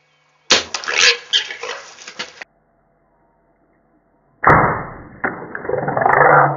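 A burst of noise with sharp clicks, then a sudden loud onset about four and a half seconds in as a warthog is shot with a bow and leaps, splashing and scrambling through shallow water and mud.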